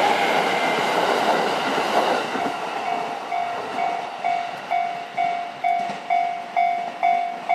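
An E231-series electric train running past over the crossing, its wheel and running noise fading over the first two or three seconds. As it dies away the level-crossing warning bell rings out clearly, a single ding about twice a second, still ringing at the end.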